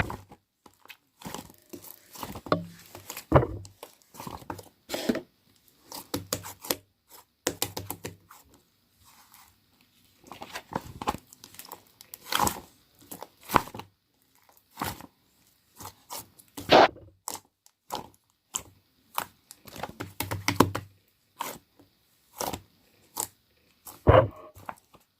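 Irregular crackling, crunching and tearing noises of something soft being handled close up, coming in uneven clusters with short pauses.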